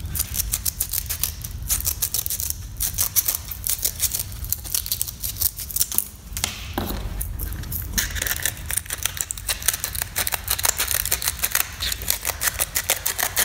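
Serrated-blade scissors crunching through coarse 50-grit sandpaper: a dense run of quick, crisp snipping clicks, with a short pause about halfway through.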